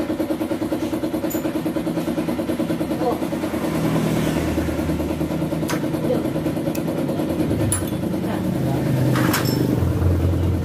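An engine running steadily in the background, with a few sharp metallic clicks of hand tools working on an opened motorcycle cylinder head while the rocker arms are being removed.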